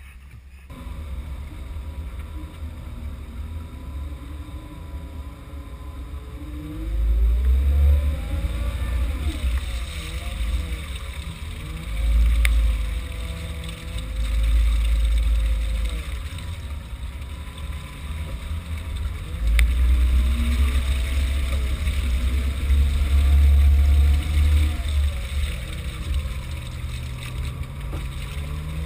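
Jeep Wrangler JK engine driving a muddy off-road trail, its pitch rising and falling several times as the driver works the throttle. Heavy low rumbling comes in several surges over it.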